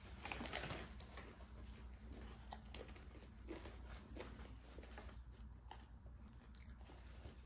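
A crunchy bite into a deep-fried taco during the first second, then faint chewing and the odd crinkle of paper food wrappers.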